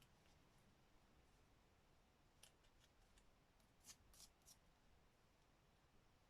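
Faint snips of scissors cutting paper: a few short clicks about two and a half seconds in and another few about four seconds in.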